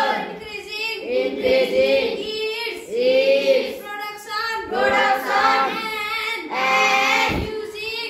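Children singing a song, in sung phrases of about a second each with short breaks between them.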